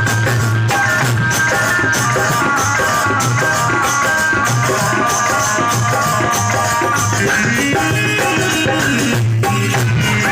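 Instrumental passage of Rajasthani folk bhajan music: a held melody over a fast, even drum rhythm with jingling rattle-type percussion, no voice singing.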